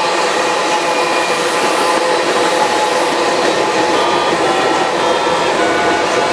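Loaded tank cars of a freight oil train rolling past close by: a steady rolling rail noise with thin, steady high whining tones from the wheels on the rails.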